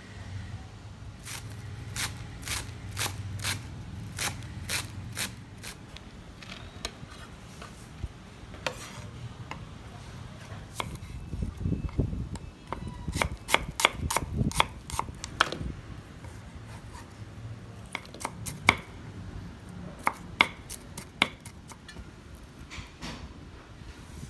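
Large kitchen knife chopping vegetables (onion) on a thick round wooden chopping board: sharp knocks of the blade on the wood in runs, some slow and some quick.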